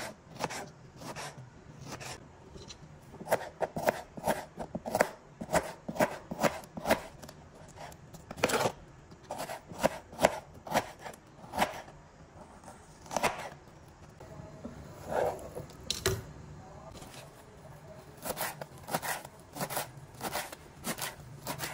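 Kitchen knife chopping tomatoes, then an onion, then fresh coriander on a cutting board: many sharp knife taps against the board, some in quick runs and some spaced out.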